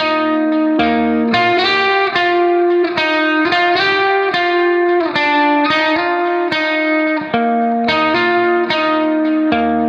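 Background music: a guitar playing a melody of quick, evenly paced notes.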